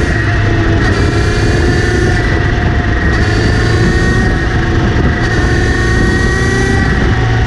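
Kawasaki Z900RS inline-four engine running with a steady high whine over it, pitch drifting slightly. The owner hears this whirring when accelerating or in gear, coming from the front sprocket area after the chain was cleaned and relubed.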